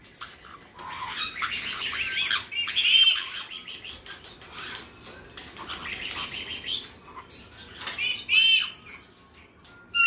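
Caiques, a black-headed and a white-bellied, chattering and squawking in short high-pitched calls, quieter in the middle and with a louder run of calls about eight seconds in, as the pair squabble.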